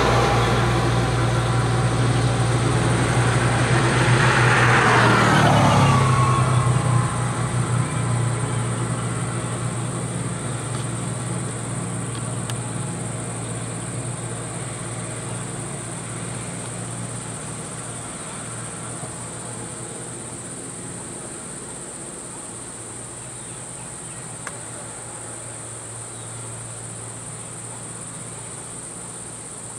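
Engines of a farm vehicle and a motor scooter pass close, their pitch dropping as they go by in the first few seconds, then fade steadily as they drive away. A steady high insect drone runs underneath throughout.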